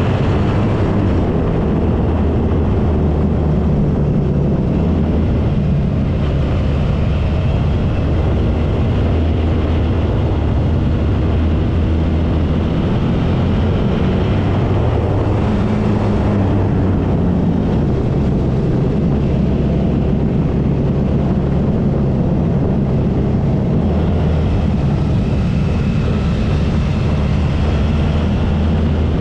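Suzuki V-Strom 650's V-twin engine running steadily under way, its note shifting up and down a little with the throttle, with wind noise rushing over the bike-mounted camera's microphone.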